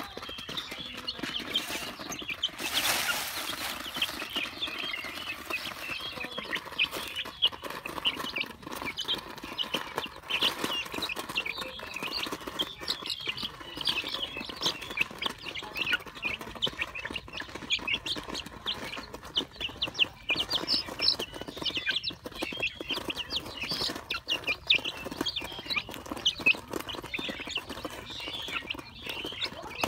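A flock of young chickens chirping and clucking constantly in quick, overlapping calls as they feed, with a short burst of noise about three seconds in.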